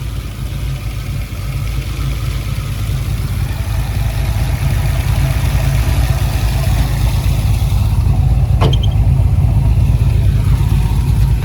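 Catless Cadillac CTS-V LS2 V8 idling steadily at operating temperature, sounding healthy on a base tune, growing louder through the first half. A short sharp click about two-thirds of the way in.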